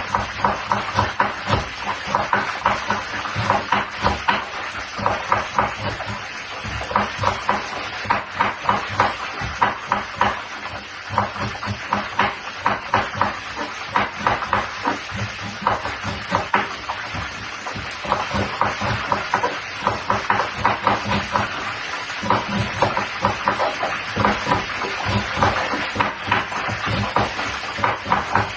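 Cabbage being chopped with a large kitchen knife on a cutting board: rapid, repeated blade strikes against the board, several a second, broken by a few short pauses.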